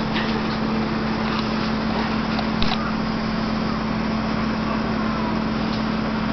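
A steady machine hum with a constant hiss, unchanging throughout, with a single light tap about two and a half seconds in.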